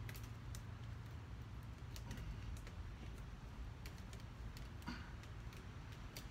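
Light irregular clicks and taps of a phone being handled and set down on the ground, over a faint steady low hum.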